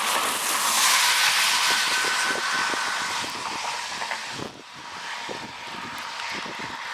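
A passing vehicle: a rushing hiss that swells over the first second, peaks, and falls away sharply about four and a half seconds in before a weaker hiss returns. A faint steady whine sits underneath throughout.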